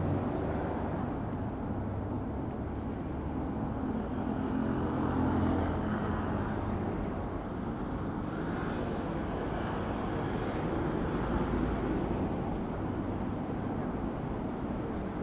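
City street traffic: a vehicle engine runs steadily for the first several seconds over a continuous wash of road noise.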